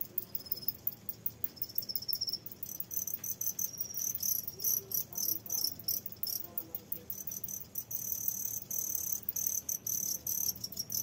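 Farmed crickets in a breeding box chirping: a fast, pulsing, high-pitched trill that grows denser and louder a few seconds in.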